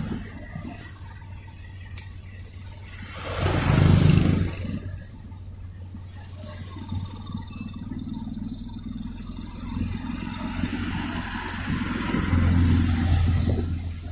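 Road traffic: a steady low engine hum with a vehicle passing close by about four seconds in, and a louder engine drone again near the end.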